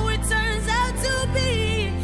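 Background pop song: a voice singing held, wavering notes over a steady bass line.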